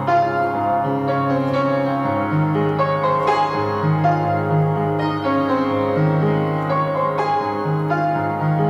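Slow piano music: a series of struck notes that ring on over held low bass notes.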